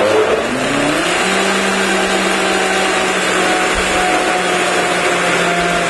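High-speed countertop blender running on a liquid ice cream base. The motor pitch climbs over about the first second as it speeds up, then holds steady at full speed.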